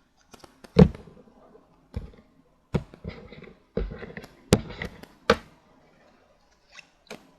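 A deck of tarot cards being handled and shuffled, with about six sharp taps and knocks against the table among softer rustling.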